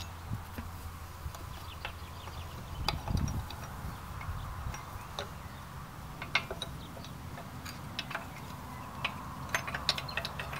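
Scattered sharp metallic clicks and clinks as the smokebox door fastening of a Maxitrak Alice miniature steam locomotive is worked loose and the door is swung open, with a quick cluster of clicks near the end.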